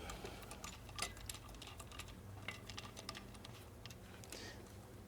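Faint, scattered small clicks and light scrapes of dirt and grit being cleared by hand off rock.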